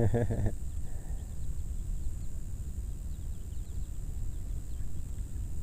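Outdoor rural ambience: a steady low wind rumble on the microphone, with faint, short high chirps in the first few seconds.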